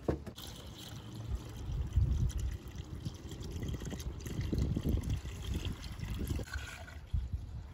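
Coolant mixed with distilled water being poured from a jug, with an uneven, gurgling flow.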